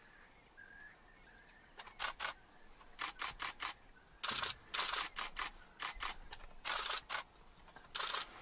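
Camera shutters clicking in single shots and quick bursts, starting about two seconds in.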